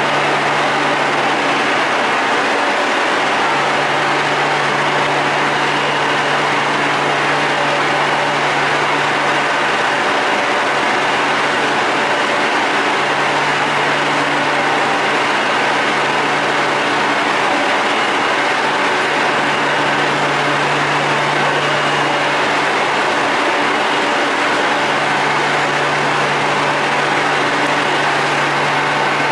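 Madrid Metro Serie 8000 train standing at the platform with its doors open: a steady hum and hiss from its onboard equipment, with a low tone that drops out briefly a few times.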